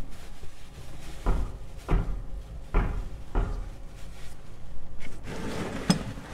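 A plastic-bag-wrapped oil filter being unscrewed by hand: four dull knocks and bumps about a second apart, with rustling and a short sharp click near the end.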